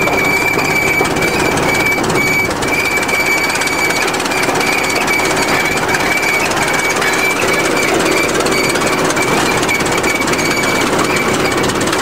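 Old Volvo crawler bulldozer's diesel engine running with a steady, rapid rattle while the machine crawls along in first gear. A steady high whine runs through it.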